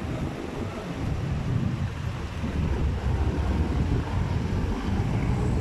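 Wind rumbling on the microphone of a rider moving along a city road, over steady traffic noise.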